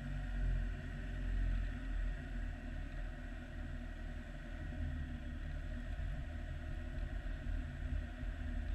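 Off-road Jeep's engine running at low revs as the vehicle crawls slowly forward, a steady low rumble.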